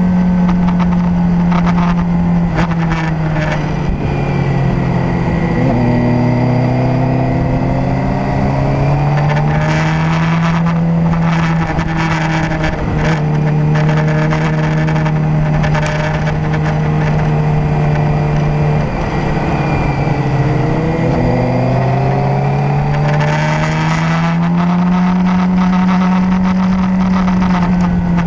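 Motorcycle engine running on the move, its pitch dropping as the throttle is rolled off about four seconds in and again near twenty seconds, then climbing back as it accelerates out of the curves. Gusts of wind noise on the microphone rise over it twice.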